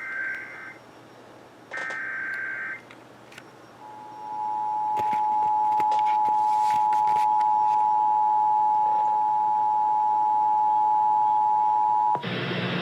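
Emergency Alert System tones received over radio. First come two short bursts of the SAME digital header, warbling data tones about a second each. About a second later the two-tone attention signal starts: a steady dual tone held for about eight seconds, which cuts off near the end as the broadcast audio switches to the message.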